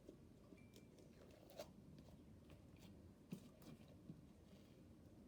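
Near silence: room tone with a few faint clicks and taps of small pieces being handled and added to slime, the clearest about one and a half and three and a third seconds in.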